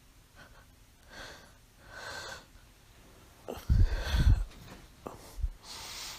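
A sleeping woman with mild sleep apnea breathing: two soft breaths, then a loud, low, rattling snort-snore a little past halfway, and a breathy hiss near the end.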